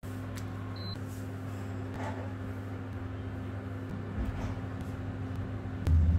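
Steady low electrical hum with a few faint clicks, and a brief louder low thud near the end.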